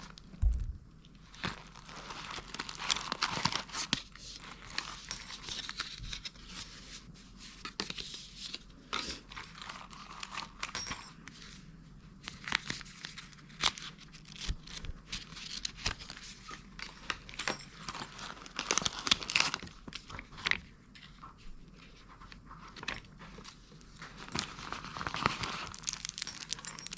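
Packaging of small surprise toys being crinkled and torn open by hand: irregular crackling rustles with frequent sharp clicks.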